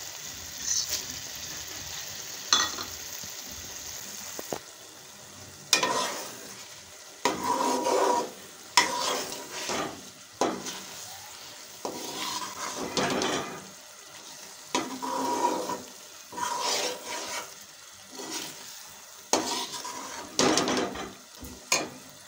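Onion-and-prawn masala sizzling in a kadhai as it is fried, while a spoon stirs it. From about six seconds in, the spoon scrapes the pan in repeated strokes every second or so.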